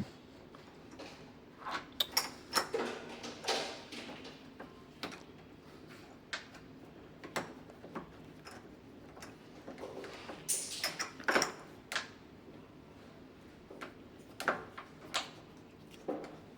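Door handle mounting screws being tightened with a hand tool: irregular clicks, taps and short metallic scrapes of the tool and screws against the handle plate, with a cluster of louder scrapes about ten seconds in.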